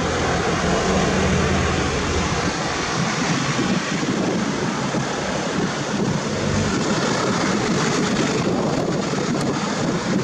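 Steady rushing outdoor noise, wind on the microphone, with a vehicle engine humming low underneath, most clearly in the first couple of seconds.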